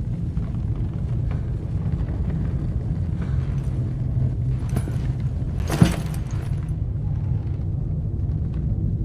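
A steady low rumble, with one sharp knock about six seconds in.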